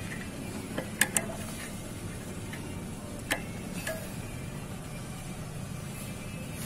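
A handful of sharp, irregular metal clicks and taps as a hand tool knocks against the motorcycle's clutch pressure plate and bolts, over a steady low background hum.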